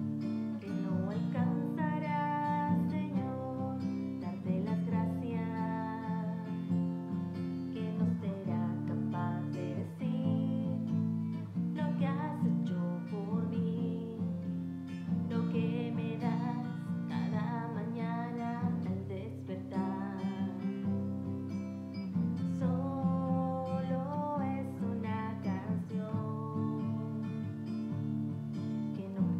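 A woman singing a song while strumming chords on a steel-string acoustic guitar fitted with a capo.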